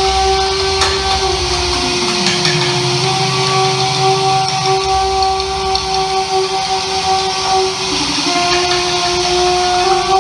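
Live experimental drone music: several steady held tones over a dense hiss. About two seconds in a low tone slides down in pitch, and near the end the held tones dip briefly in pitch and come back.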